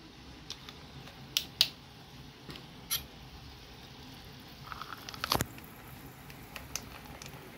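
Soda water poured into a glass of ice, orange juice and mint: a few light clicks of handling, then the pour about five seconds in, with the sharpest click as it starts, and faint fizzing crackle as the drink foams up.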